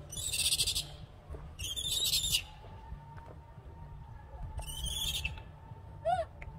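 Birds calling in four short, high-pitched warbling bursts, the last a quick run of falling notes near the end, over a low steady rumble.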